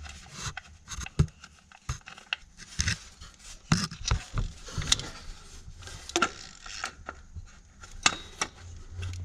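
Irregular small metallic clicks and scrapes from hand work under a car engine: bolts and a socket being handled and worked loose near the water-pump drive.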